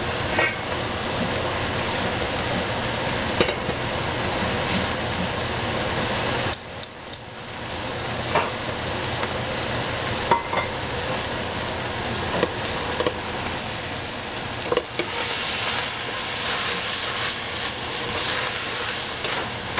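Hedgehog mushrooms, kale and broccolini sizzling in a frying pan as they are stirred, with scattered knocks of the utensil against the pan. The sizzle drops briefly about six and a half seconds in, then builds back up.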